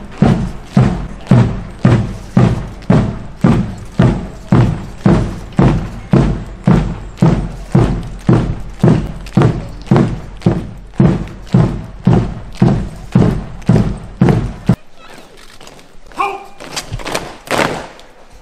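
Marching band's bass drum beating a steady march, just under two beats a second, then stopping abruptly about fifteen seconds in. A shouted drill command follows near the end.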